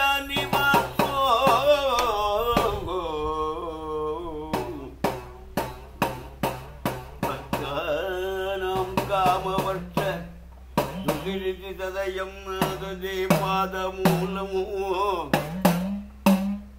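A man singing a slow, ornamented sopana sangeetham temple song. From about four seconds in, a hand-held bell-metal gong (chengila) and an idakka drum keep a steady beat of sharp strokes.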